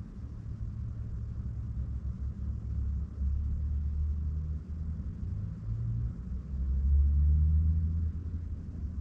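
Low, uneven rumble of a car heard from inside its cabin, swelling louder about seven seconds in.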